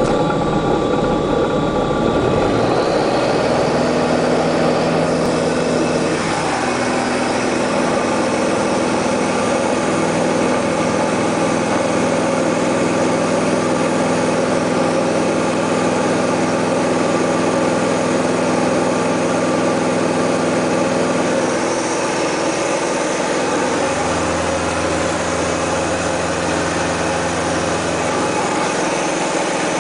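Diamond DA20 Eclipse's four-cylinder piston engine and propeller, heard from inside the cockpit, running in a loud steady drone through the takeoff roll and climb-out. The tone shifts about three-quarters of the way through.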